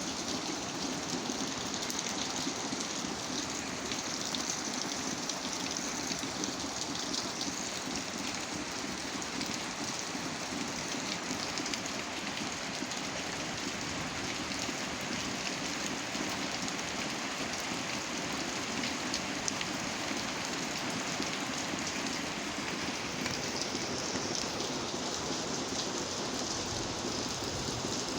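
Steady rain falling, a continuous hiss with many small drops pattering on surfaces.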